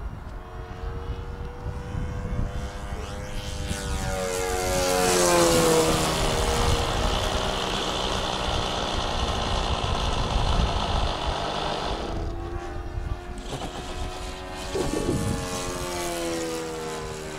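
ASP 61 four-stroke glow engine of an RC model plane in flight, running steadily. It makes two fly-bys, its pitch falling as it passes, about five seconds in and again later on.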